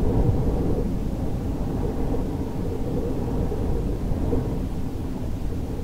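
Wind blowing as a steady low rumble, swelling a little now and then.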